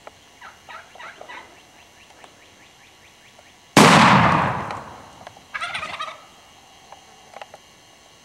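Wild turkey toms gobbling in quick rattling runs, then a single loud shotgun blast a little under four seconds in that echoes away over a second or so, followed by another short burst of gobbling.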